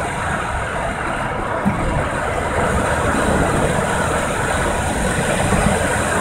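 Car driving at highway speed, heard from inside the cabin: steady engine and road noise, with one light thump under two seconds in.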